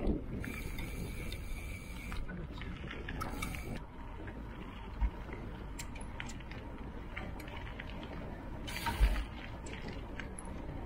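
Riding noise of a mountain bike on a dirt forest singletrack: a steady rumble from the tyres, with scattered clicks and rattles from the bike. There is a light knock about five seconds in and a louder one about nine seconds in, as the bike goes over bumps.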